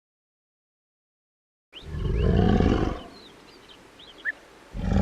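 Silence for nearly two seconds, then a dinosaur roar sound effect: one deep roar lasting about a second, short high chirps after it, and a second roar starting near the end.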